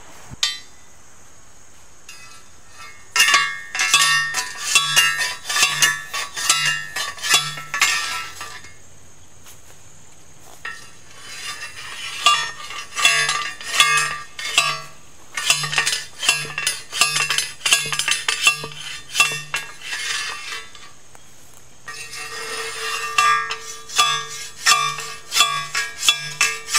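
Manual post driver pounding a steel T-post into the ground: repeated ringing metal-on-metal clangs, about two strikes a second, in three runs with short pauses between.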